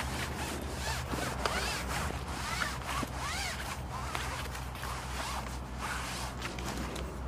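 Fixed-spool reel on a feeder rod working in short rasping spurts as a hooked fish is played, with short high chirps over it.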